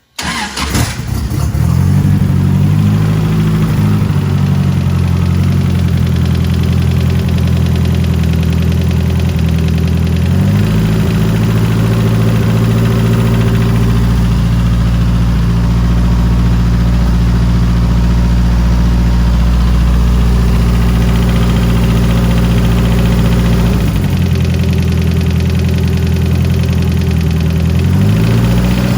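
Turbocharged Ford 2.3 L inline-four engine in a sandrail started and then idling, its note shifting up and down a few times. It still has a light valvetrain tick even after new lifters were fitted, so the tick is not from the lifters.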